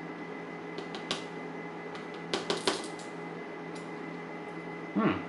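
Light metallic clicks of small padlock parts, pins, followers and tools, being handled while the lock is repinned. A few faint clicks come about a second in, then a quick cluster of sharper clicks and taps about halfway through.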